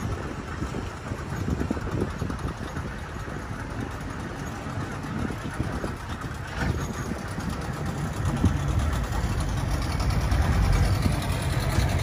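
Small boat's engine running slowly at low throttle, a steady low hum, growing louder over the last few seconds.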